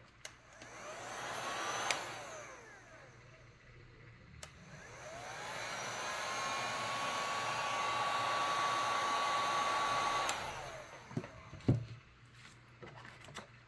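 Handheld heat gun blowing hot air over the fresh epoxy on a tumbler, switched on twice: a short run of about a second and a half, then a longer run of about five seconds. Each time its fan whine rises as it spins up and falls as it runs down, with a steady high tone during the long run. A sharp click comes near the end.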